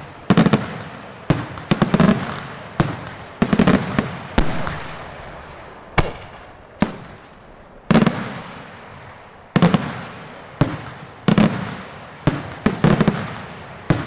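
Daytime fireworks display: aerial shells going off in loud, sharp bangs at irregular intervals, sometimes two or three in quick succession, each trailing off in a long echo.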